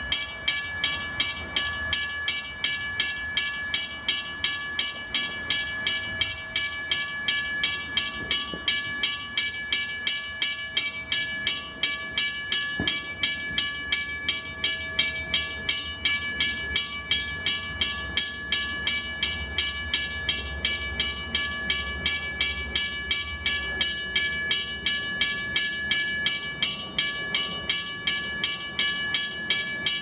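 Railroad crossing bell ringing steadily, struck about twice a second, with its metallic tone ringing on between strokes.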